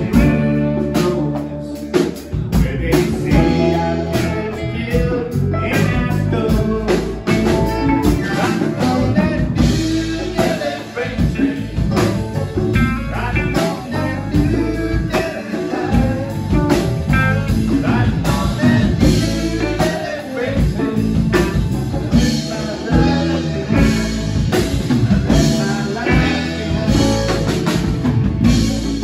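Live band playing a blues-rock number on saxophone, electric guitar, bass guitar, keyboards and drums, with a vocal sung over it.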